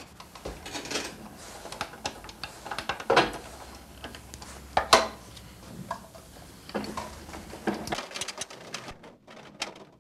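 Irregular metallic clicks and clanks from an electric stair-climbing hand truck being handled by hand, with a few sharper knocks among them.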